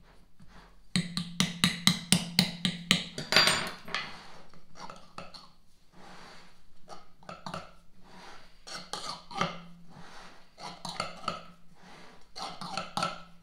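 Knife trimming excess pie-crust dough against the rim of a pie plate on a wooden board. A fast run of sharp clicks and taps, about five a second, begins about a second in and lasts some three seconds, then gives way to sparser scraping clicks.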